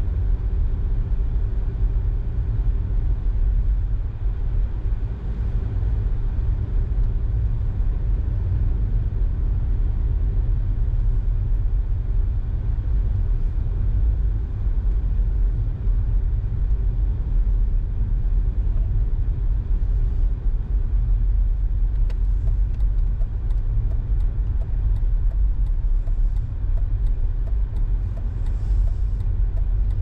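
Steady low rumble of a car driving on a road, engine and tyre noise without changes in speed, with a run of faint light clicks in the last several seconds.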